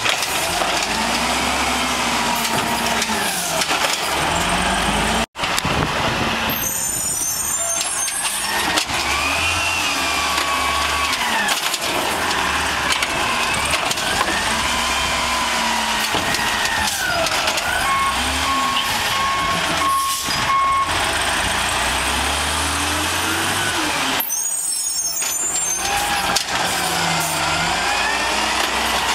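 Peterbilt garbage truck with an Amrep automated side loader running at the curb, its engine speeding up and settling back again and again as the hydraulic arm lifts, dumps and lowers the carts, with a rising and falling hydraulic whine. A run of evenly spaced beeps sounds for a few seconds near the middle.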